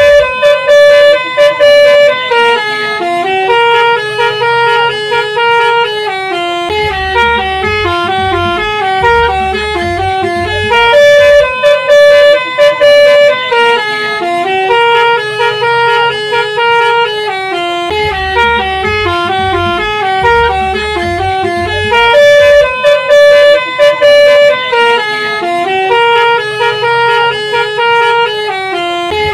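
Basuri 'telolet' multi-tone bus horn playing a tune of stepped, held notes that loops about every eleven seconds, with a low bass layer coming in for a few seconds in each loop.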